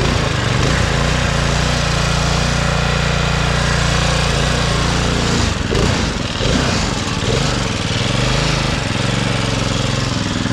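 Craftsman riding mower's engine running hard under load as the mower crawls slowly through deep mud. Its note is steady at first, then breaks briefly about halfway through and wavers in pitch after that.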